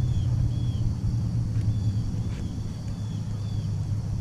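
Steady low rumble with short high chirps repeating about twice a second over it, and a few faint clicks.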